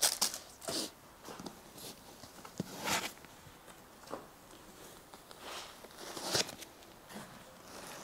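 Small plastic bags of parts rustling and crinkling in short, scattered bursts as they are handled.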